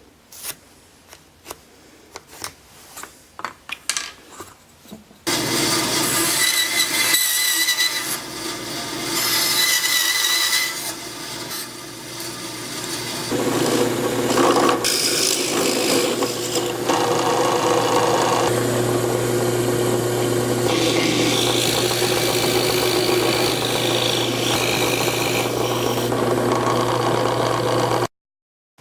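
Scattered clicks and knocks of wood and tools being handled. About five seconds in, an electric power tool starts and runs steadily with a low motor hum, its bit cutting into wood with a rasping, changing sound. It stops abruptly shortly before the end.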